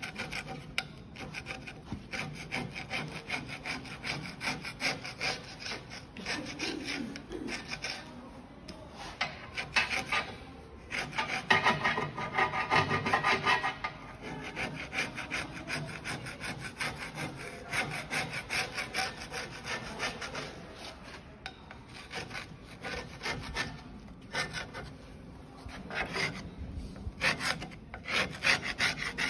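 Rapid back-and-forth hand scrubbing along the grooves of a Bühler roller mill's fluted roll, cleaning off caked residue. A rasping stroke comes several times a second, in spells with short pauses.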